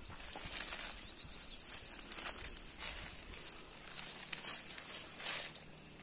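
Leaves and branches of a bush rustling in short bursts as a hand pushes into the foliage, the biggest burst about five seconds in. Behind it, high-pitched chirps repeat in quick trains.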